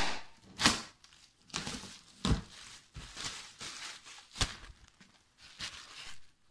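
Plastic shrink-wrap crinkling and tearing in a string of short, irregular rustles as it is pulled off a cardboard board-game box, with a sharp click about four and a half seconds in.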